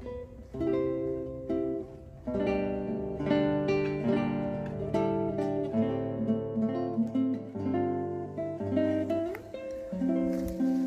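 Background music: an acoustic guitar picking a melody over chords.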